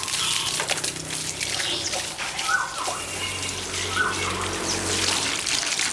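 Water running and splashing steadily, with scattered small clicks and two short high squeaks.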